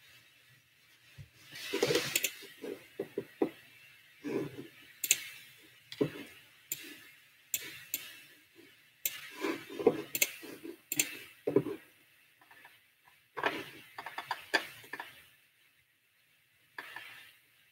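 Small hard objects being handled and set down on a desk: irregular clicks, taps and knocks with bits of rustling, dying away near the end.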